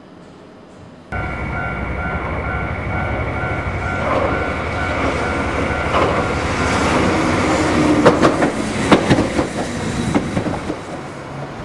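A Hiroshima streetcar runs along its street track, its running noise growing louder. Its wheels clack sharply over rail joints several times, mostly in the later part.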